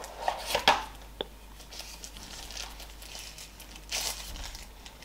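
Packaging crinkling and rustling as a small streaming stick is taken out of its wrapping. There are irregular bursts of crinkle in the first second, a sharp click about a second in, and another rustle about four seconds in.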